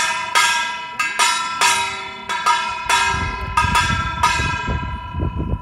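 Brass handbell (yoryeong) of a Korean funeral-bier procession rung repeatedly, about ten clanging strikes at an uneven pace of roughly two a second. The strikes stop a little after four seconds in and the last one rings down. Low rumbling lies underneath in the second half.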